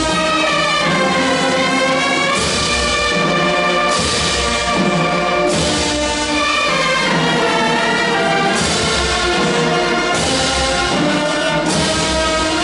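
Brass band playing slow, sustained chords, with some sliding notes and a struck accent every second or two.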